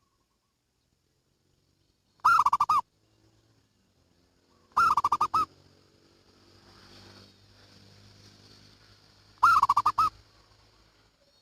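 Zebra dove (perkutut) calling: three short bursts of quick, rolling cooing notes, the second about two and a half seconds after the first and the third about five seconds later.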